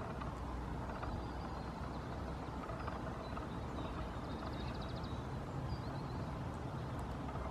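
Steady low rumble of distant road traffic, with faint small-bird chirps over it and a short rapid trill about four and a half seconds in.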